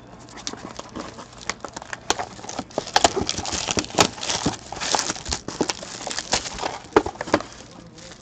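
A cardboard trading-card box being opened by hand: taps and scrapes of the cardboard, then dense crinkling of a plastic wrapper from about three seconds in.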